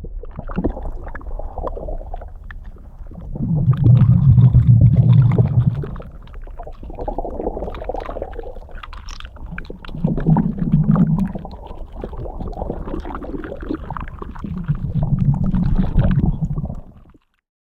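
Underwater sea ambience recorded by divers: a low rumble scattered with crackles and clicks, with three loud low gurgling surges about five to six seconds apart. It cuts off abruptly near the end.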